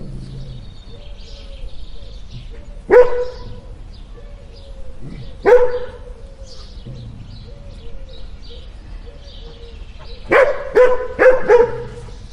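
Two dogs barking: single loud barks about three and five and a half seconds in, a quick run of four barks near the end, and quieter short barks in between.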